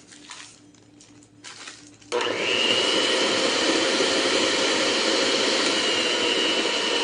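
Soft rustling as dry cake mix is poured into the bowl, then about two seconds in an electric mixer switches on and runs steadily with a high whine, beating the chocolate cake batter.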